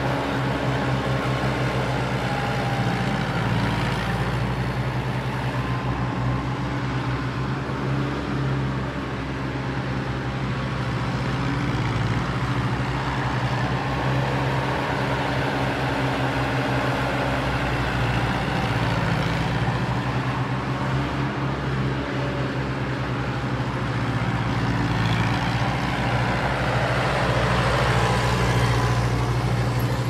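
An engine running steadily with a low, even hum that barely changes.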